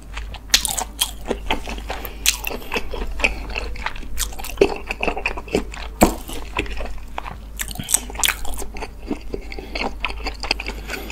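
Close-miked chewing and crunching of food: an irregular run of sharp wet clicks and smacks from the mouth.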